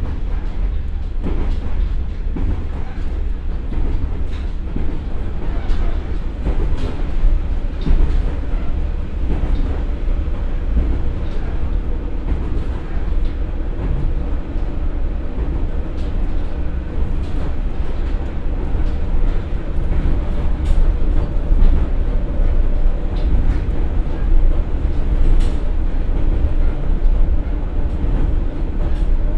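Inside a JR West KiHa 47 diesel railcar with a Komatsu engine and KTF3335A transmission: steady low running rumble of the engine, transmission and wheels on the rails as the train slows from about 66 to 46 km/h. A few sharp clicks come through along the way.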